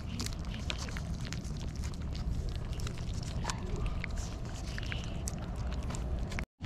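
Several cats licking lickable paste from a squeeze-tube treat close to the microphone: many quick, wet clicks of tongues lapping, over a steady low rumble.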